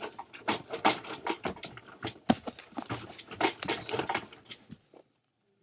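Commotion of a staged earthquake: a rapid, irregular clatter of knocks and rattling, cutting off abruptly about five seconds in.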